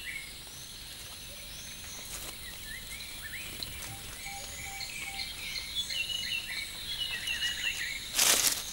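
Tropical rainforest ambience: a steady high insect hum with runs of short, high chirping calls, and a brief loud burst of rustling noise near the end.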